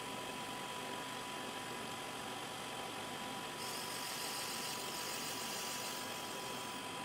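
OD grinder running with a steady whine. About three and a half seconds in, its wheel bites into the hardened steel of a ball-bearing inner race, adding a high grinding hiss for a couple of seconds as it takes the outside diameter down.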